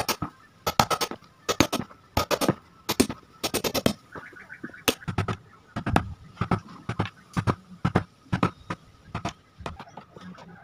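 Hammer striking a tack-lifting tool and the wooden sofa frame, sharp blows about two or three a second, often in quick pairs, as old upholstery tacks are knocked out.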